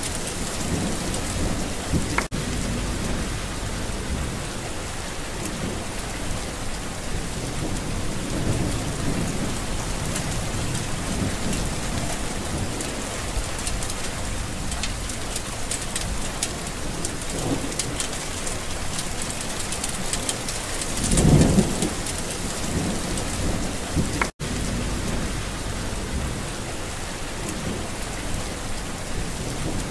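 Steady rain of a thunderstorm, with one low roll of thunder swelling about two-thirds of the way through. The rain cuts out for an instant twice.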